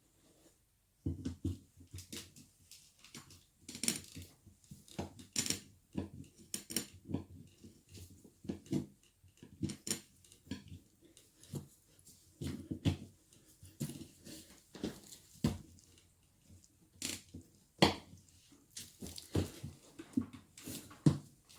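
Irregular metallic clinks and knocks with duller thumps: hand tools and parts being handled and set down, starting about a second in.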